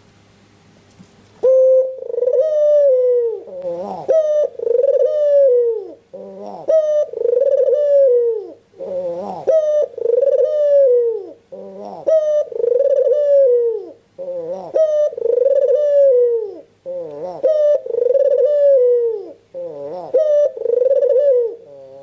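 Albino (white, red-eyed) Barbary dove, the domestic ringneck 'puter', cooing: about eight coos in a steady rhythm, one every two and a half seconds or so, starting about a second and a half in.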